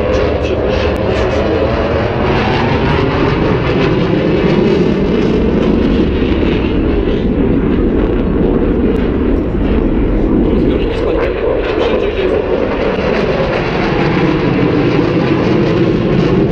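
Dassault Rafale fighter jet flying a display pass, its twin jet engines loud and steady, with the pitch shifting in the first few seconds as it passes.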